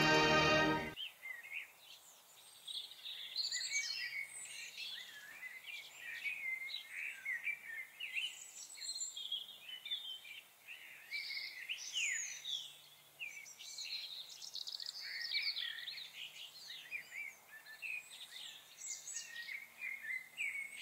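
Music that stops about a second in, then recorded birdsong: a dense, continuous tangle of short chirps and warbling calls from songbirds.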